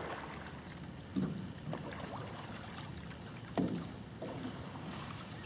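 Shallow swamp water sloshing and swishing a few times as someone moves through it, over a low steady background hiss.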